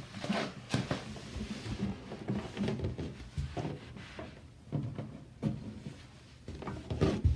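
Irregular light knocks, clicks and rustling of a plastic sprayer holder being fitted under a toilet tank lid, with the lid shifting against the tank.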